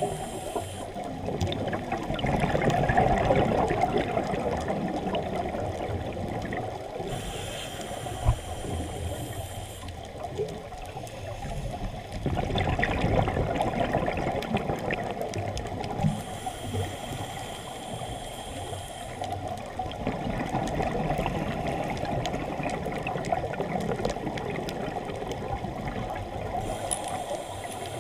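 Scuba breathing heard underwater through the camera housing: a steady bubbling rush of water, with a higher hiss that swells for about three seconds roughly every ten seconds, in time with the diver's breaths through the regulator.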